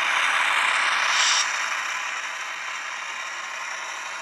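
Model train freight cars rolling along the track, a steady clatter of wheels on rails, louder for about the first second and a half and then easing off.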